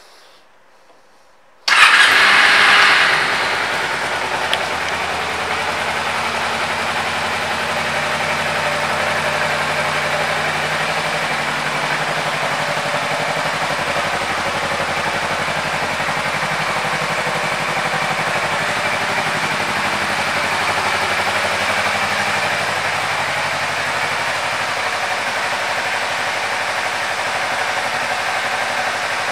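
2012 Kawasaki Ninja 250R's parallel-twin engine starting about two seconds in, flaring up briefly, then idling steadily.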